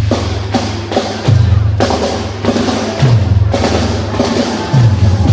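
Percussion ensemble beating large floor drums whose heads splash with water, hard strikes several times a second over a deep booming note that drops in pitch and comes back about every one and a half to two seconds.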